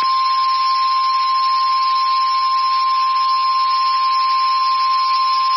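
NOAA Weather Radio 1050 Hz warning alarm tone: one steady, unbroken high tone over a steady hiss. It is the attention signal that comes just before a severe thunderstorm warning is read.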